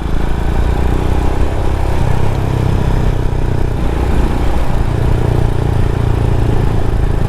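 Single-cylinder adventure motorcycle engine running steadily while riding, with wind rushing over the microphone.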